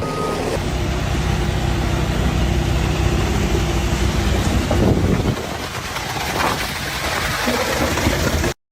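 An engine running with a steady low hum for about five seconds, then thinner noisy sound; it cuts off abruptly near the end.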